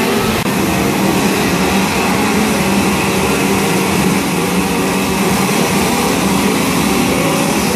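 Gas chainsaws running loud and steady.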